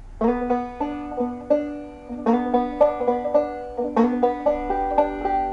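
Five-string banjo played clawhammer style in double C tuning: a short phrase of plucked, ringing notes, several a second, demonstrating a note slid into on the third string rather than played on the open second string.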